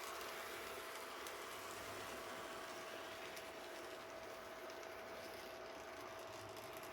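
Model train locomotive running on its track under DC power: a faint, steady thin whine over a hiss, with a few light clicks.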